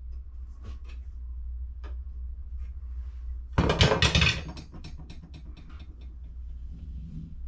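Hand tools handled against a drywall opening: a steel ruler and a speed square tapping and scraping, then a loud clatter lasting about a second, about halfway through, as the speed square is set down. A steady low hum runs underneath.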